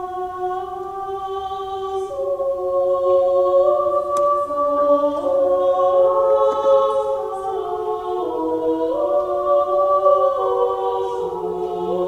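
A cappella choir singing imitative counterpoint: several voices hold long notes and move in steps, each line echoing the others, and a new lower voice enters about eleven seconds in.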